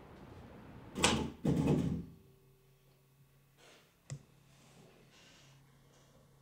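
Two loud scraping noises, each about half a second long, about a second in. Then quiet room tone with a single sharp click a little after the middle, a cigarette being stubbed out in a ceramic ashtray.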